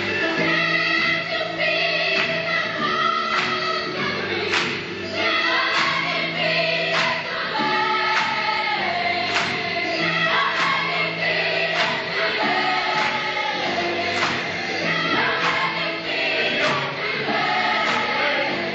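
A large choir singing a gospel song together, many voices holding and changing notes as one, over a steady beat.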